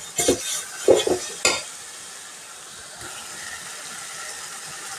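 A spoon stirring and scraping chicken pieces through masala in an aluminium pot, a few strokes in the first second and a half. Then only the steady sizzle of the masala cooking in the pot.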